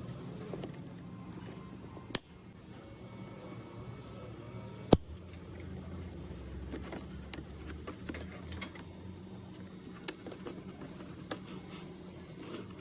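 A few sharp clicks and knocks spaced seconds apart, the loudest about five seconds in, over a low steady hum.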